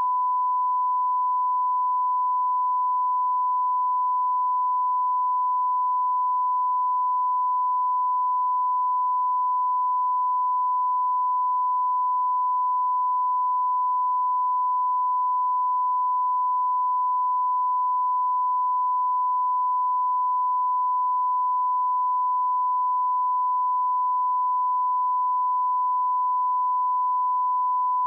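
Steady 1 kHz reference test tone, the line-up tone that goes with broadcast colour bars: one unbroken pure pitch at a constant level.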